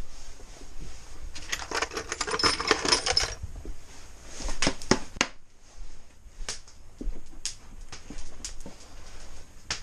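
Small hard objects clinking and rattling as they are handled: a dense clatter starting about a second and a half in and lasting under two seconds, then a few sharp clicks and scattered single knocks.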